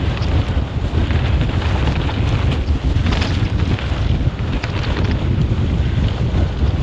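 Heavy wind buffeting the GoPro Hero 11 microphone on a fast mountain bike descent, a steady low rumble, over tyre noise on the dirt trail. Scattered clicks and rattles from the bike over stony ground, bunched about three seconds in.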